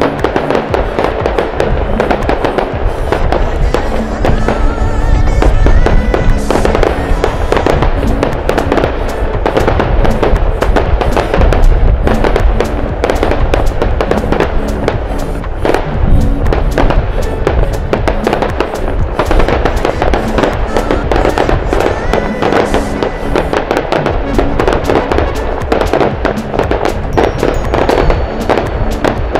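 Fireworks display: a dense, continuous run of bangs and crackling from bursting shells, with music playing under it.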